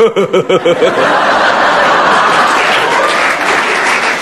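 A short burst of laughter, then an audience applauding steadily from about a second in.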